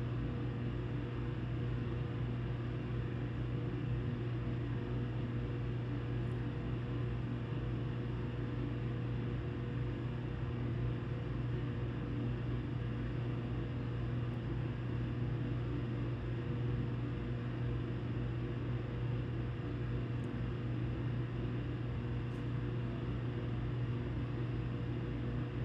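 A steady low hum from a machine or appliance, holding one pitch and level.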